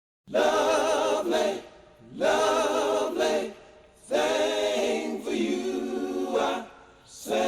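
R&B vocal group singing an a cappella harmony intro: three held phrases of about a second and a half each, with short breaths between, and a fourth starting near the end.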